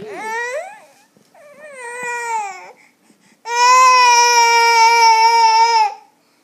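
A baby girl crying in three cries: a short rising one, a wavering one, then a long, loud wail held at one pitch.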